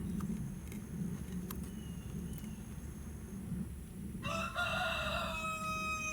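One long pitched animal call about four seconds in, held for a couple of seconds and dropping in pitch at its end, over a steady low rumble.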